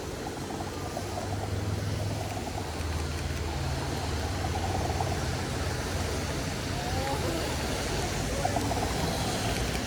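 A motor vehicle's engine running close by in street traffic: a steady low hum that grows louder about a second in and holds.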